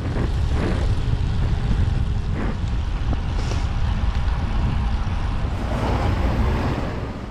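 Wind buffeting a bike-mounted or helmet camera's microphone while riding a road bike: a loud, unsteady low rumble with a hiss over it, fading out near the end.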